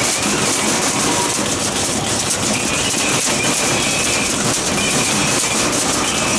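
Loud, steady, rapid rattling and clattering over a hiss.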